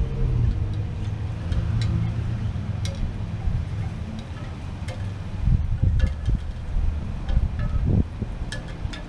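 Wind gusting over the microphone, a low buffeting rumble that swells and eases, with scattered light, high tinkles over it.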